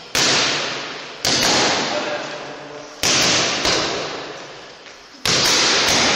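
Boxing gloves smacking into focus mitts: five sharp hits, two close together in the middle, each ringing on in the echo of a large hall.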